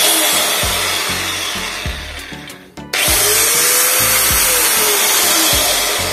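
Bosch GWS 060 angle grinder running free with no disc fitted, its motor and gears spinning at full speed with a loud whirring hiss. The sound starts suddenly and sinks over the first three seconds. It then breaks off abruptly, comes back at full strength and holds steady, easing near the end.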